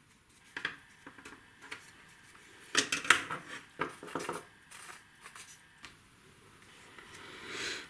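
Wooden parts of a marble-run kit clicking and knocking as they are handled and pushed together, with a cluster of sharper knocks about three seconds in.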